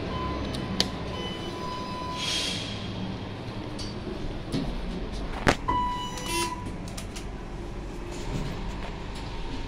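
Elevator signals and buttons: a steady electronic beep of about two seconds with a button click in it, then a sharper click about halfway through followed by a shorter beep, over a low steady hum.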